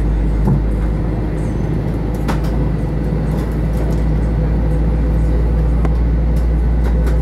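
Steady low cabin drone of an Airbus A321 airliner on the ground, with a constant hum and a few faint clicks.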